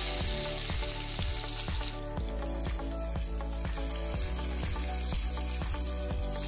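Ginger-garlic paste and whole spices sizzling as the paste drops into hot oil in an aluminium pot, over background music with a steady beat.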